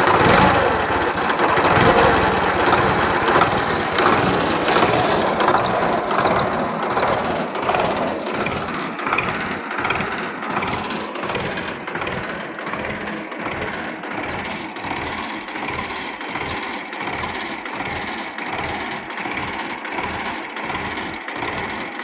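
Four-cylinder diesel engine of a 1978 Belarus tractor idling steadily just after a start, growing somewhat fainter over the first ten seconds.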